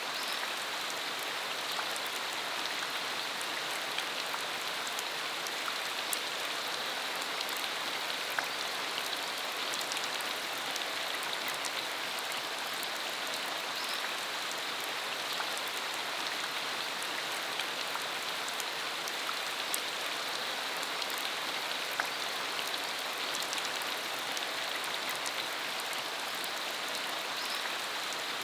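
Steady rain falling on a dirt country road: an even, dense hiss sprinkled with many small drop ticks.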